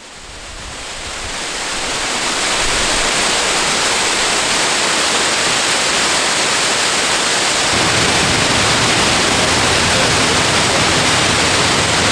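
Large waterfall cascading down a steep cliff face into the fjord: a loud, steady rush of falling water that fades in over the first two seconds or so. A deeper rumble joins it about eight seconds in.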